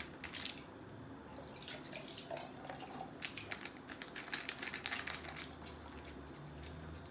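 Strawberry lemonade poured from a plastic bottle into a glass pitcher of ice: faint pouring and dripping, with a run of light clicks through the middle seconds.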